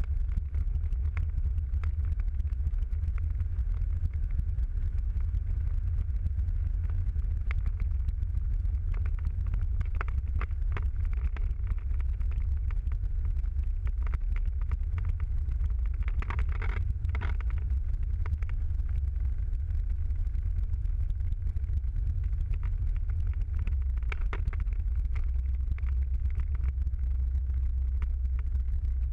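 Steady low rumble of a car's engine and tyres heard from inside the cabin while driving at a constant pace.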